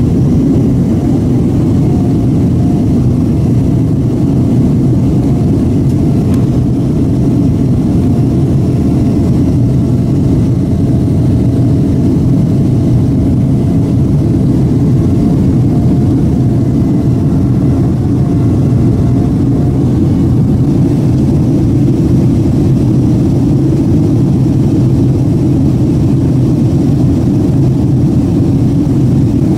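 Jet airliner cabin noise in flight: the engines and the airflow over the fuselage make a loud, steady, even rumble that doesn't change.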